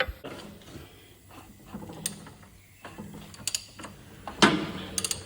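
Ford GPW four-cylinder flathead engine, its valves removed, being turned over by hand: scattered mechanical clicks and clunks as the crankshaft rotates, the loudest about four and a half seconds in. The engine, formerly seized, now turns over smoothly.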